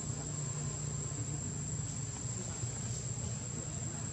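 Insects calling in one steady, unbroken high-pitched tone, over a low steady rumble of background noise.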